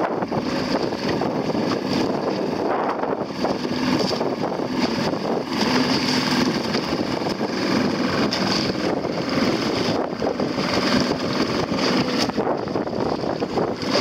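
A small boat's motor running steadily while towing a dinghy on a line, with strong wind buffeting the microphone over the rush of choppy water.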